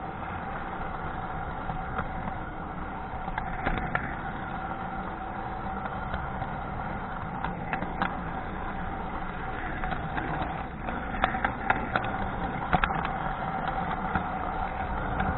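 Model train running along its track, heard from a camera riding on board: a steady electric motor whine over the rumble of the wheels. Sharp clicks from the wheels on the track come now and then, several close together about three-quarters of the way through.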